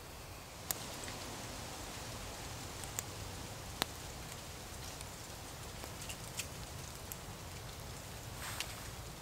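Small wood-burning camp stove fire crackling under a pan of stew: a steady hiss with scattered sharp pops.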